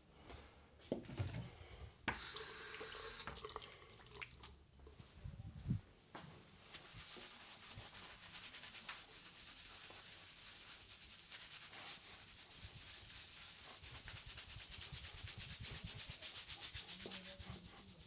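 Fingers scrubbing a lathered scalp: a steady, fast, even rubbing and squishing of wet, soapy hair from about six seconds in. Before that come a few knocks and some clatter.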